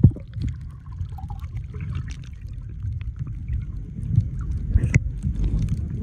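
Sea water heard through an underwater camera: a sudden splash and rush of bubbles as it goes under, then a dull, steady low rumble of water moving around the housing, with a few faint clicks.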